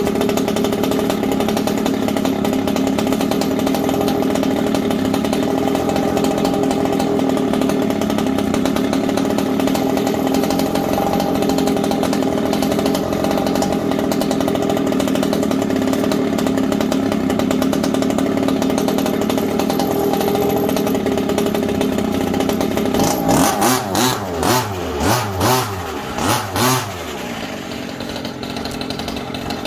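Small two-stroke petrol engine of a 1/5-scale RC rally car running steadily, then revved up and down about half a dozen times in quick succession before dropping back to a lower idle near the end.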